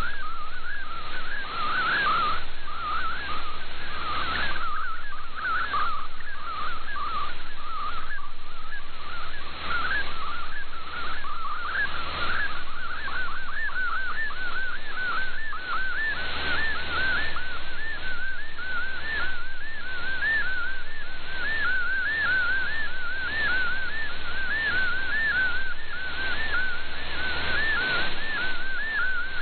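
MFSK64 digital image transmission received over shortwave: a warbling tone sweeping quickly up and down in repeating arcs, over a hiss of shortwave static that swells and fades.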